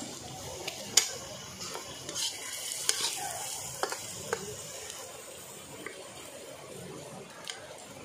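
Metal ladle stirring and scraping food in a kadhai over a wood fire, with steady sizzling and a few sharp clinks of the ladle against the pan.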